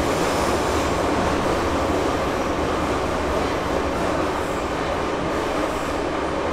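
Kyiv metro train running through a tunnel, heard from inside the car: a loud, steady rumbling noise of wheels on rails and running gear that eases slightly toward the end.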